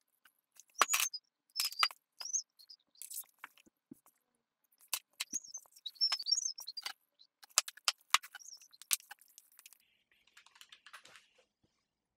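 Small tabletop handling sounds: sharp clicks and knocks of objects set down and picked up, and short high squeaks of a marker writing on paper, strongest about a second in and again around six seconds. Soft paper rustling near the end.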